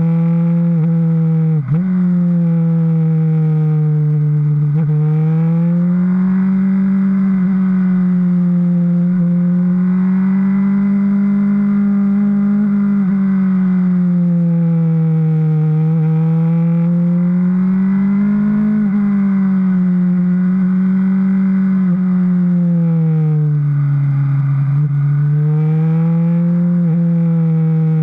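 Suzuki GSR750 inline-four engine running under way, its note rising and falling slowly several times as the revs change. The pitch dips sharply and briefly about two seconds in, with a few smaller dips near the end.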